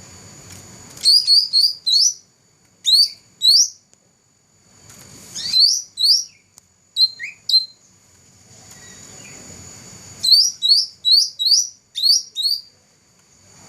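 A cucak rante songbird singing in bursts of quick, high, upward-sweeping chirps, several notes to a burst, with pauses of a second or two between the bursts.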